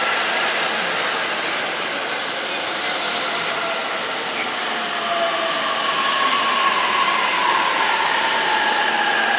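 Train running past: a steady rumble with drawn-out whining tones, one of which slowly falls in pitch through the second half.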